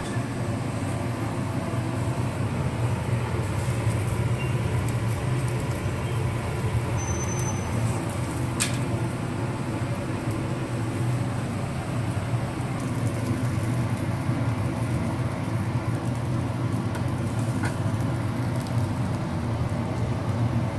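Steady low hum of street ambience, with one sharp click about eight and a half seconds in.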